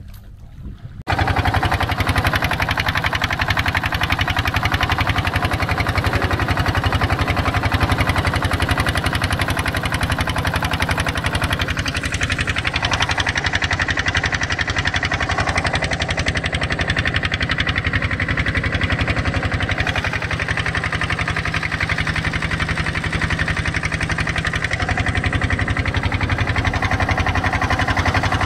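Small fishing boat's engine running steadily under way. It comes in abruptly about a second in, then holds an even, fast pulsing.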